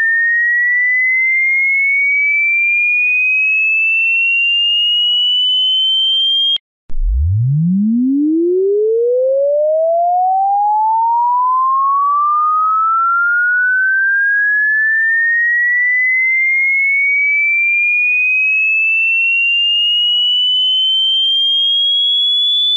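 Electronic sine-wave tone sweeping steadily upward in pitch. It cuts off about six and a half seconds in, then after a brief gap starts again from a deep hum and rises smoothly to a high whistle.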